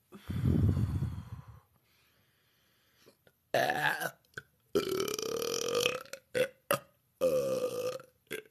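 A woman burping: one long, deep burp lasting about a second and a half, then after a pause a run of shorter, higher-pitched burps.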